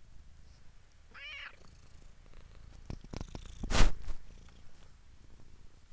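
A domestic cat playing with a dangled toy: a brief high-pitched call about a second in, then a few light clicks and a loud thump just before four seconds.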